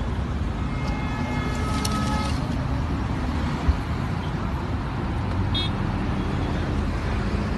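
Steady road traffic rumble, with a car horn sounding for about a second and a half, starting about a second in.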